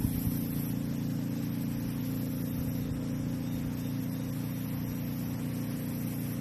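A boat motor running steadily with an even low hum.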